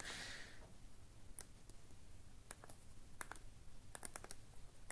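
Faint, irregular clicks of an AGM M6 rugged feature phone's keypad buttons being pressed one after another as text is typed on it.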